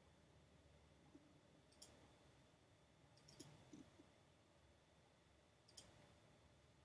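Near silence with a few faint computer mouse clicks, one about two seconds in, a quick pair in the middle and one more near the end.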